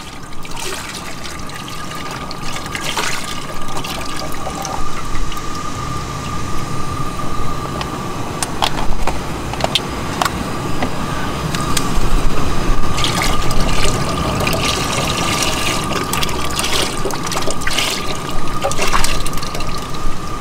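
Broth pouring from cartons into a cast-iron Dutch oven, in two long stretches with a few sharp clicks of carton handling in between. A thin steady high tone runs underneath.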